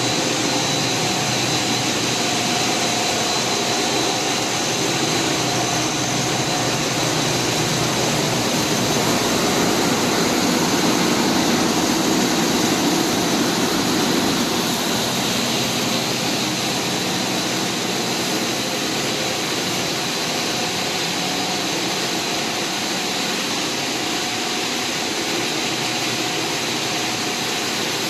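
Fortified rice kernel production-line machinery running: electric motors and fans make a steady drone, with a couple of constant high-pitched whines over it.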